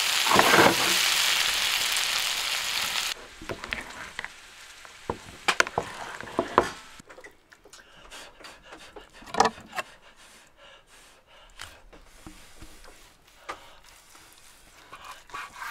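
Potatoes sizzling loudly in a frying pan as a spatula turns them, cut off suddenly about three seconds in. Then quieter scattered knocks and scrapes as a knife slices a roast on a wooden cutting board.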